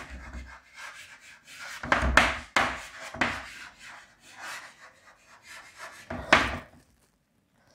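Handwriting: a run of short scratching and rubbing strokes of a pen or chalk on a writing surface, with a sharp stroke about two seconds in and another loud one near the end before it stops.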